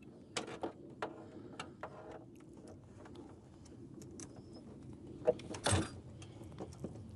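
Crimping pliers and red insulated terminals being handled on heavy-gauge power cable: a series of light clicks and knocks, with a louder knock and a short rasp a little past five seconds in.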